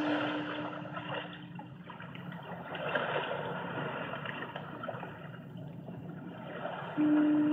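Added background soundtrack: a rushing, water-like noise that rises and falls in slow swells, under a steady low held tone that fades out about two seconds in and comes back abruptly near the end.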